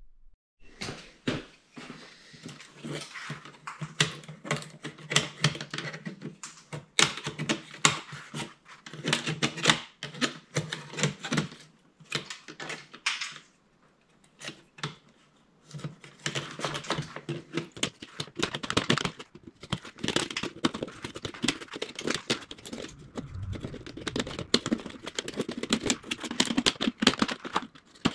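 Rapid, irregular clicking and scraping of metal being worked by hand, knocking burrs off the slots of the masonry saw's metal parts, with a brief pause about halfway.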